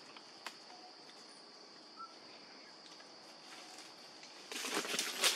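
Insects droning steadily at a high pitch over faint outdoor ambience. About four and a half seconds in, a louder burst of rustling and crunching in dry leaves, like footsteps, takes over.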